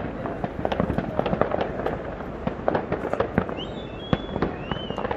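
New Year fireworks and firecrackers going off all around in a dense, irregular crackle of pops and bangs, with a few short high whistles in the second half.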